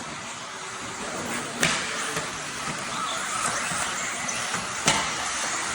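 Radio-controlled race cars running on the track, a steady hiss of motors and tyres, with two sharp knocks, one about a second and a half in and one near the end.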